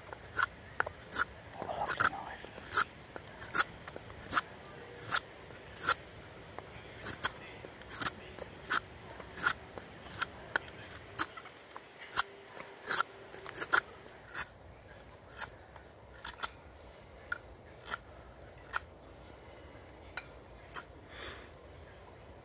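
Knife whittling wood: a run of short, crisp cuts, roughly one every 0.7 to 0.8 seconds, that come further apart and fainter after about 14 seconds.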